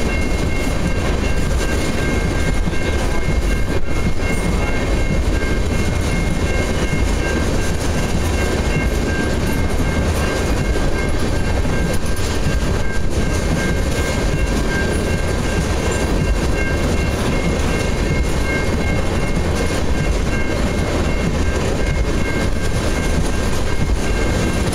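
Freight train of ethanol tank cars rolling past: a steady, loud rumble of steel wheels on rail, with a thin high ringing held through it.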